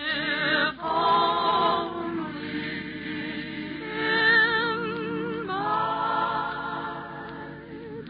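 Choir singing held chords with vibrato, the harmony changing every second or two.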